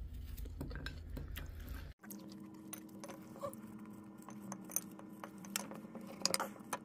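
Faint, irregular small clicks and taps of a knife cutting food on a cutting board, with a faint steady hum after about two seconds.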